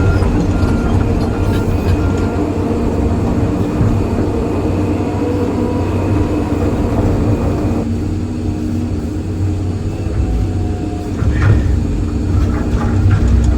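Excavator's diesel engine running steadily under hydraulic work, with a few short beeps in the first two seconds and a couple of knocks near the end as the concrete is broken up.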